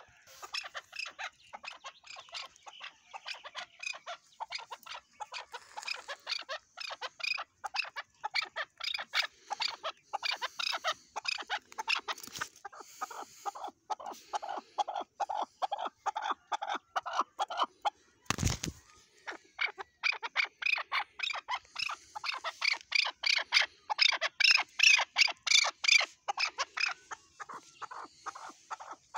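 Chukar partridge calling a long run of short, rapidly repeated chuck notes, several a second, with a brief lull near the middle and the loudest stretch in the last third. A single thump about two-thirds of the way in.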